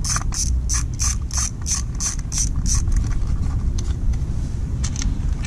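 Socket ratchet clicking steadily, about three clicks a second, as a cover bolt is backed out. The clicking stops about three seconds in, leaving a few scattered clicks.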